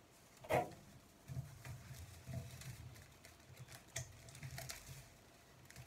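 Dry broomcorn stalks being handled and fitted around a broom handle: faint, irregular rustling and small clicks, with one sharper crack or knock about half a second in.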